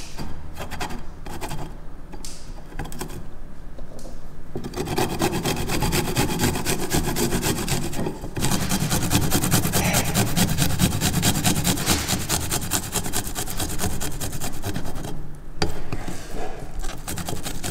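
Garlic cloves grated by hand on a stainless steel grater: a fast, continuous rasping of short scraping strokes. It is lighter for the first few seconds, then fuller, with brief breaks about halfway and near the end.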